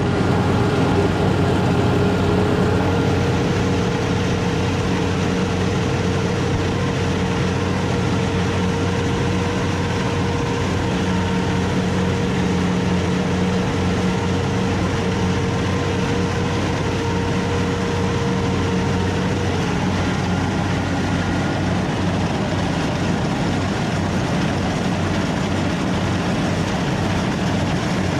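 Rice combine harvester running steadily, its engine humming with a higher mechanical whine that stops about two-thirds of the way through.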